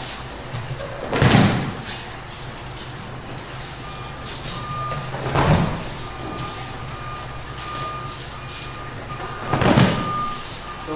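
Three dull thumps of aikido breakfalls onto a padded dojo mat, about four seconds apart, over a steady low hum. A faint, high beeping tone comes and goes from about four seconds in.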